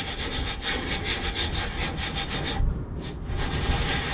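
Ratcheting wrench with a pass-through socket clicking rapidly in back-and-forth strokes as it spins a sway bar link nut off its bolt, with a short pause a little past halfway.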